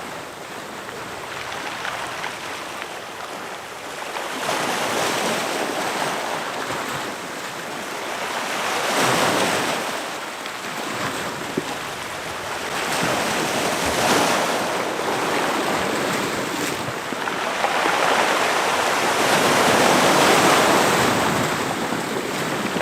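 Sea surf breaking and washing up the shore, surging louder and falling back every few seconds, with the largest swell near the end.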